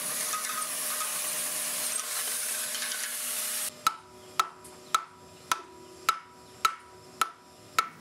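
A steady hiss that cuts off abruptly about three and a half seconds in. Then a run of sharp hammer strikes, about two a second and eight in all, from work chipping and cutting leftover investment material and runners away from freshly cast bronze sections.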